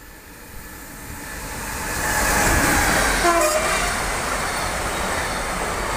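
Electric freight locomotive and its container wagons passing close by. The rush of wheels on rail builds over the first two seconds and then holds steady. A brief horn note sounds about halfway through.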